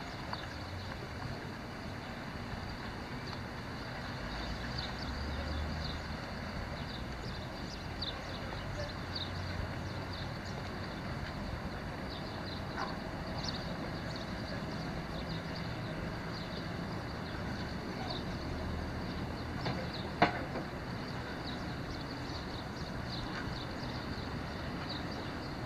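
Outdoor ambience: a steady low rumble with many short, high chirps scattered throughout, and one sharp click about twenty seconds in.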